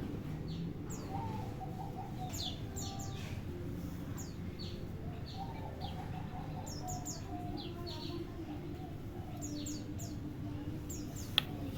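A kolibri wulung sunbird calling with short, high, downward-sweeping chirps, repeated in quick runs, over a low background hum. A single sharp click comes near the end.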